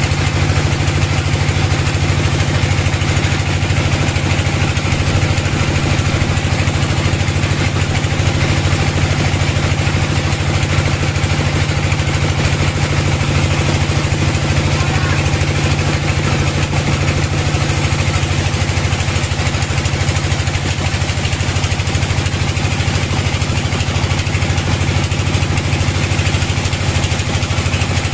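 Bandsaw mill running steadily as its blade rips lengthwise through a log: a constant low machine drone under the even noise of the cut.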